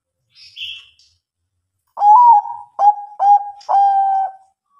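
Bangkok-type zebra dove (perkutut) cooing: a phrase of four coos starting about two seconds in, the first bending in pitch and the last held longest. A shorter, fainter noisy sound comes about half a second in.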